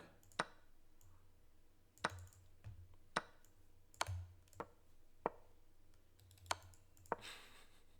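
Computer mouse clicking, about eight sharp single clicks at irregular intervals as moves are made in a fast online chess game, over a faint low hum.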